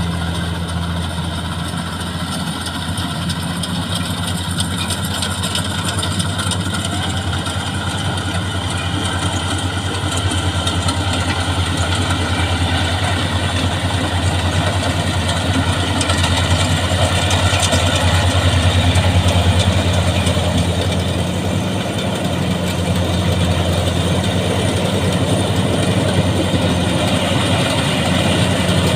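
Rice combine harvester running steadily, its engine humming low under a clatter of machinery, growing somewhat louder about halfway through.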